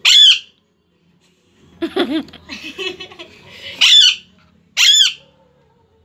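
Rose-ringed parakeet screeching three times, each a short, loud, arched squawk, with a burst of harsher chattering squawks between the first and second.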